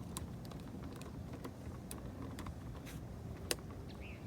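Flag ornament being screwed down by hand onto the flagpole top, making scattered light clicks and ticks as it is tightened. The sharpest click comes a little past three seconds in, and a short chirp sounds near the end.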